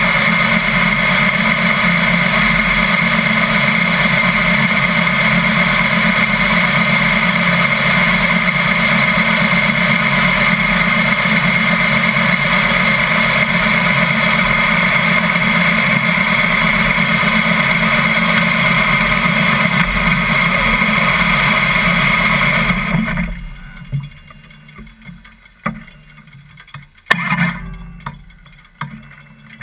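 Harley-Davidson V-twin motorcycle engine idling steadily, then shut off about three quarters of the way through; afterwards a few scattered clicks and knocks.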